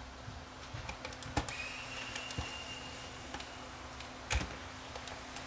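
Light clicks and a couple of sharper knocks from handling a camcorder and its casing while it is taken apart. Under them there is a steady low hum, and a faint steady high whine comes in about a second and a half in.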